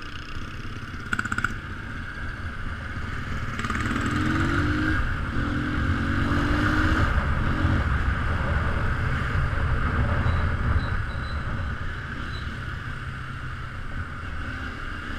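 Keeway Cafe Racer 152 motorcycle's single-cylinder engine accelerating through the gears, its pitch rising in three runs with short breaks for the gear changes, then running on steadily.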